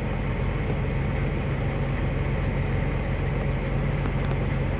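Tractor engine running steadily, heard from inside the closed cab as an even, low drone.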